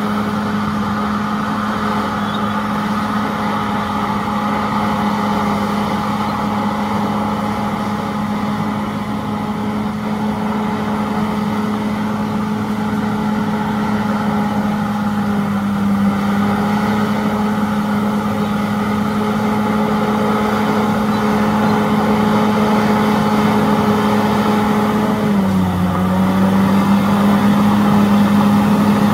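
Bulldozer's diesel engine running steadily under work, with an even drone; near the end the engine note dips slightly lower and deepens.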